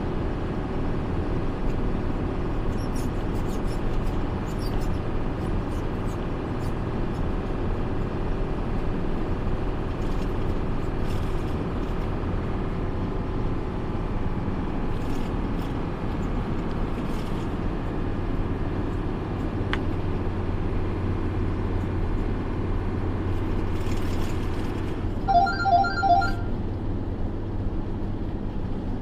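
Steady low drone of a truck's engine and road noise heard inside the cab at highway speed. About 25 seconds in, three short electronic beeps sound in quick succession.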